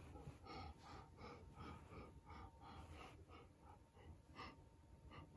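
Faint, quick, huffing breaths from a person, two or three short puffs a second.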